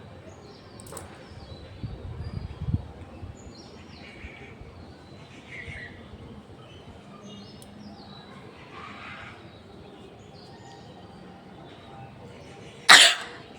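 Birds chirping faintly in the background, with a brief low rumble about two seconds in. Near the end comes one loud, short sneeze.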